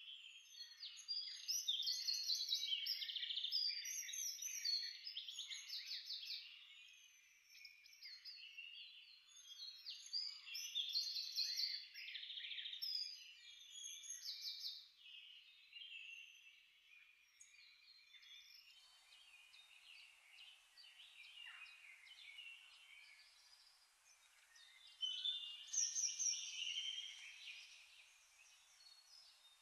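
Many small birds chirping and singing over one another. The calls are dense at first, thin out in the middle and swell again near the end, with a faint hiss coming in about two thirds of the way through.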